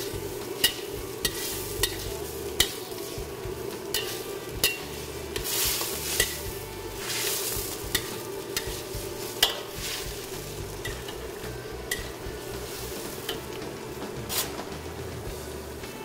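Metal wok ladle clanking and scraping against a wok about once a second as crisp-fried pork is stir-fried in a sweet-sour sauce. Under it the sauce sizzles and bubbles over a steady hum.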